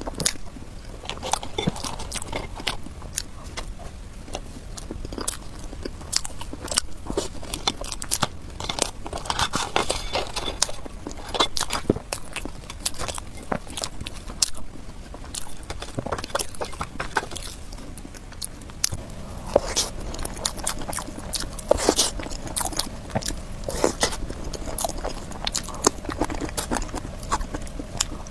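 Close-miked eating sounds: biting into and chewing soft cake, with many short wet mouth clicks and smacks throughout.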